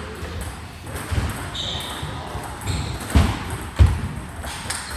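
Table tennis ball strikes and bounces in a large hall: several sharp knocks at uneven spacing, the two loudest about half a second apart a little past the middle, with a brief high squeak about one and a half seconds in.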